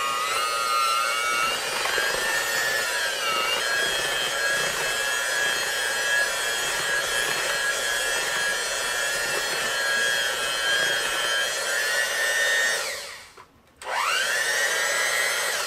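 Electric hand mixer running with its beaters in thick peanut-butter cookie dough, a steady motor whine that shifts a little in pitch as the load changes. About 13 seconds in it stops briefly, starts again, and is switched off near the end.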